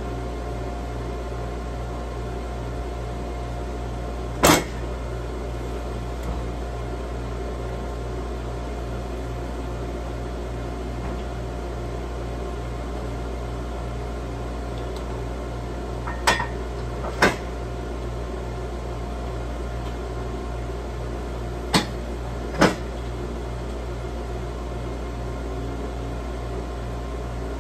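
Steady mechanical hum of a homemade sawmill left running at idle. It is broken by five sharp knocks as the timber is handled and set on the metal mill bed: one about four seconds in, then two pairs later on.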